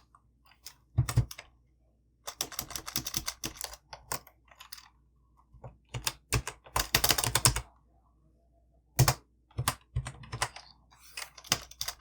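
Typing on a computer keyboard: bursts of rapid keystrokes with short pauses between, a few single louder key strikes among them.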